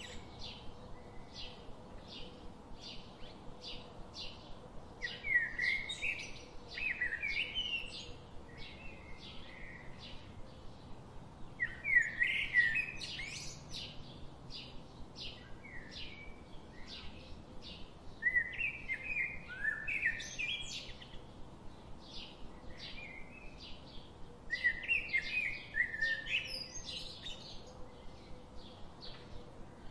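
Birds singing: short, high chirps repeat about twice a second throughout, and louder warbling song phrases come roughly every six seconds.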